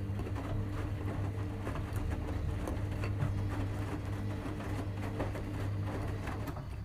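A steady low hum with a quick, irregular run of light clicks over it.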